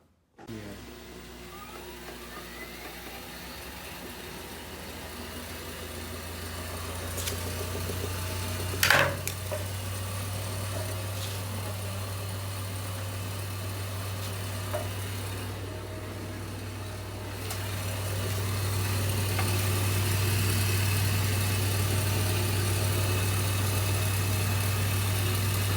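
Washing machine running with a steady low mechanical hum that starts about half a second in and gets louder, with a sharp knock about nine seconds in.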